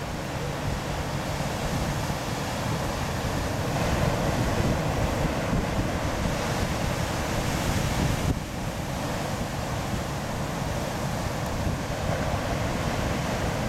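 Sea surf breaking and washing over rocks below a headland, with wind buffeting the microphone. The rush swells louder for a few seconds in the middle and drops off abruptly about eight seconds in.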